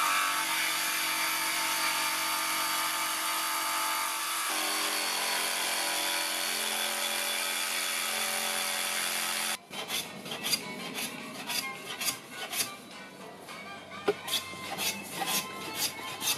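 DeWalt DCS331 cordless jigsaw running steadily as it cuts a wooden station-mould board, its motor pitch dropping about halfway through the cut. It cuts off abruptly, and quieter, rapid rhythmic strokes follow.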